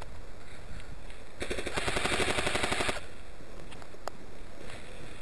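An airsoft electric gun fires one rapid full-auto burst, about one and a half seconds long with roughly twenty shots a second. A single sharp click follows a second later.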